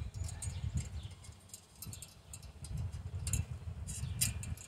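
Light, irregular metallic clicks and taps from stainless-steel camping stove parts being handled and fitted together by hand, the sharpest two about three and four seconds in, over a low rumble.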